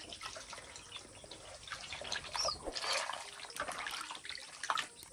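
Hands washing pieces of goat offal in a plastic basin of water, with irregular wet sloshing and splashing as the tripe is squeezed and turned.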